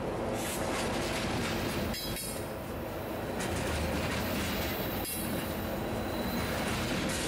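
Loaded covered grain hopper cars of a freight train rolling past close by. Steel wheels on rail make a steady rumble, with a sharp clack every two to three seconds.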